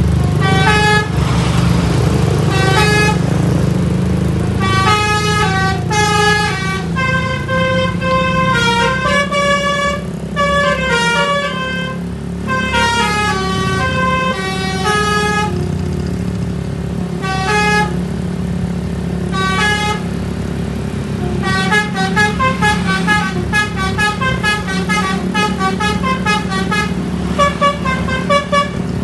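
A bus's basuri telolet horn playing tunes of quickly changing notes over the bus engine running. In the last several seconds it plays a fast string of short repeated notes.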